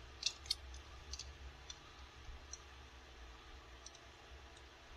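Faint clicks of plastic parts on a transforming robot toy figure being worked by hand, two sharper clicks in the first half-second and scattered lighter ones after.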